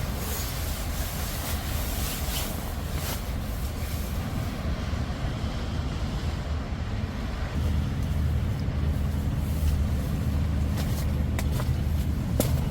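An engine running with a low, steady hum that grows louder and fuller about seven to eight seconds in.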